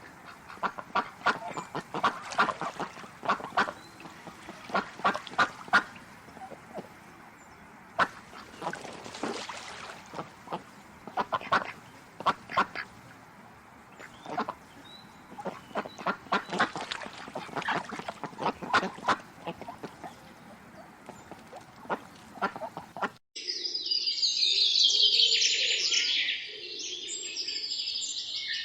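Waterfowl calling in clusters of short, rapid, repeated calls with pauses between them. About 23 seconds in, the sound cuts off suddenly and a dense chorus of high songbird chirping takes over.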